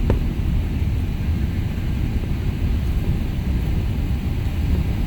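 Steady low rumble of an airliner heard from inside the passenger cabin, with a brief click at the very start.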